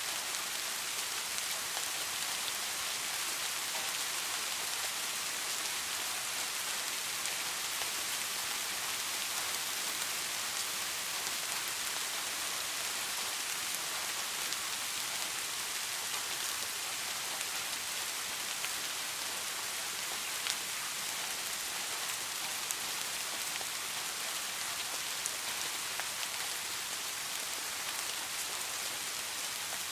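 Steady rain falling on a surface, an even hiss with scattered individual drop taps.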